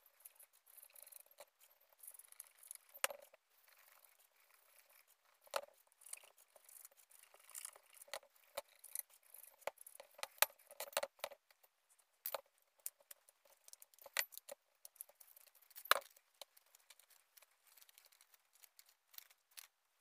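Faint rustling and scraping of a sheet of paper being rubbed with fingers against the inside of a two-stroke cylinder bore to mark the port outlines, with scattered light clicks and knocks as the cast barrel is handled on the bench.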